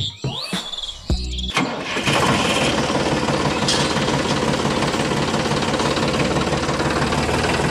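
A small motor running with a fast, steady rattle, starting about two seconds in after a short stretch of music.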